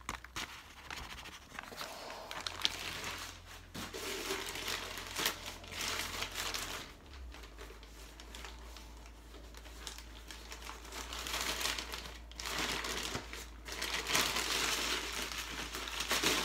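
A nearly empty paper bag of whiting crinkling and rustling as it is shaken out over a stainless steel bowl and then handled and crumpled, in several bouts with short pauses between.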